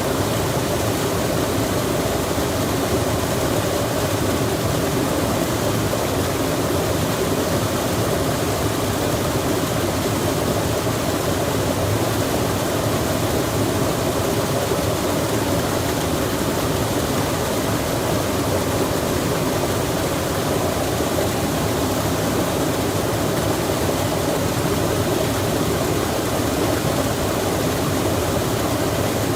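Rain falling beside a running stream, a steady, even rush of water.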